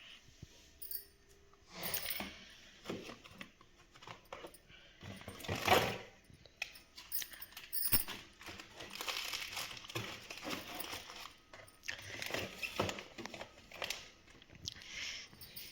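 Irregular rustling, crinkling and clattering of things being handled, with a sharp clack about six seconds in and another about eight seconds in.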